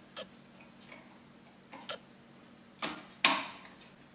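Metal parts of a multi-point door lock mechanism clicking as they are handled and fitted: a few faint ticks, then two sharp clacks about a second before the end as the lock's cover is seated.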